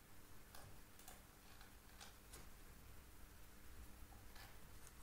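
Near silence with a few faint, irregular clicks and ticks from a computer mouse's buttons and scroll wheel, over a low steady hum.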